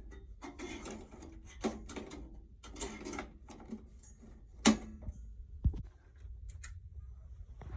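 Handling noises: a series of rustles and clicks, with one sharp click a little past halfway, over a low steady hum.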